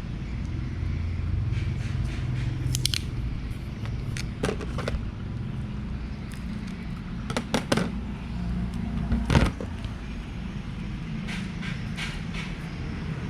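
Paper and plastic being handled: scattered crinkles, crackles and scrapes, the loudest a few sharp ones about two-thirds of the way in, over a steady low background rumble.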